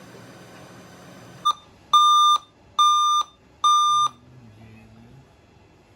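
Electronic beeper sounding loud, high half-second beeps about a second apart, three in a row and then a pause before the next group of three, after a short chirp about a second and a half in.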